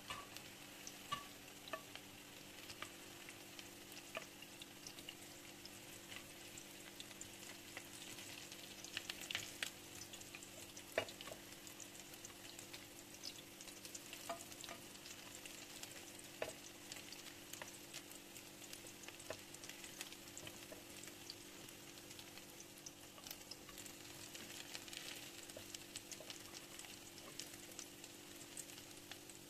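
Egg-coated cauliflower pieces sizzling and crackling in hot oil in a frying pan, with scattered taps and scrapes of a wooden spatula as they are turned and lifted out. A steady low hum runs underneath.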